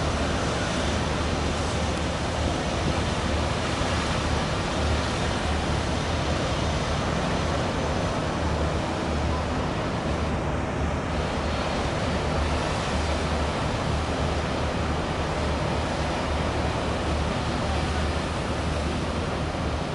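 Coco Yachts Coastal Cruiser 300 fast ferry catamaran manoeuvring on its MJP waterjets. The churned wash makes a steady rush of water over a constant low drone.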